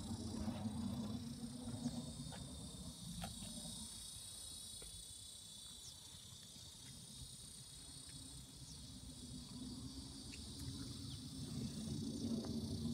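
Steady, high-pitched chorus of insects, many close-spaced tones, over a low rumble that fades in the middle and comes back near the end.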